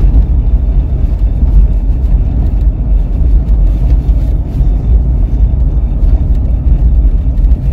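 Steady low rumble inside a moving car's cabin: engine and tyre noise while driving on a rough, patched road.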